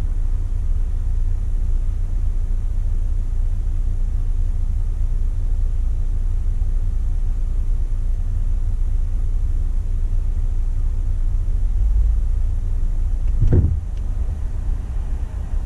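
Steady low rumble of a car being driven, heard from inside the cabin, with one short thump about thirteen seconds in.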